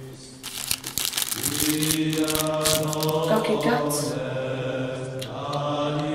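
Brief crinkling and clicking early on, then from about a second and a half in a choir singing a long held chord that carries on steadily.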